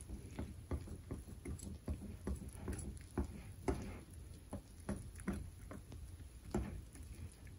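Wire whisk beating pancake batter in a bowl: a steady run of soft wet taps and swishes, about two to three strokes a second.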